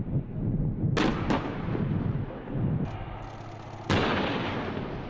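Tank main guns firing: two shots about a third of a second apart about a second in, then a louder shot near four seconds, each followed by a rolling echo. Beneath the shots is the low rumble of tank engines.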